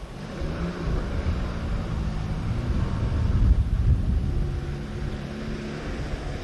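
Four-wheel-drive utility vehicle's engine running as it drives off-road, with a low rumble that grows loudest about halfway through and then eases.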